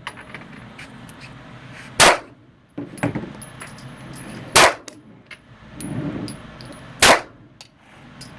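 Three handgun shots, evenly spaced about two and a half seconds apart, each a sharp crack with a brief echo in an indoor range. Faint clicks and clinks in between.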